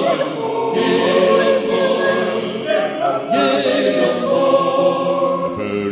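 Mixed choir singing a gospel spiritual a cappella, several voice parts holding and moving through chords.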